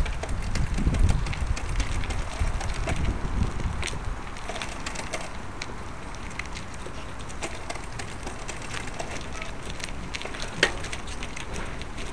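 Mountain bike rolling over a rough, cracked concrete lane: tyre crunch and a steady stream of small rattling clicks, with a heavier low rumble over the first four seconds. One sharper click about ten seconds in.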